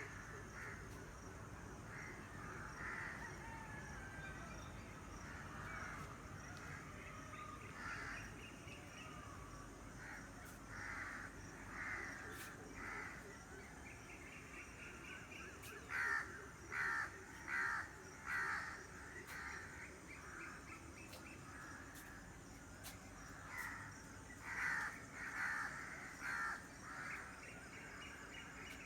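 Crows cawing in runs of harsh calls, the loudest two runs of four caws each coming about midway and again near the end, over a faint background of other birds.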